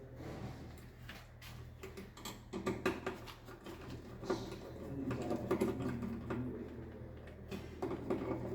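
Irregular light clicks and taps of hand work on a distribution board's terminations, with tools and cable ends being handled, over a faint steady low hum.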